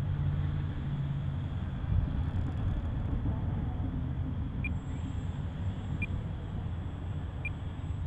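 Gusty wind buffeting the microphone as a steady low rumble. From about halfway through, short high electronic beeps repeat about once every second and a half.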